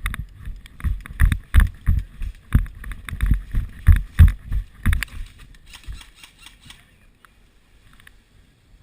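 A run of irregular heavy thumps with rustling and rattling, like a player's running footsteps and gear jostling, for about five seconds, then fading to faint rustle.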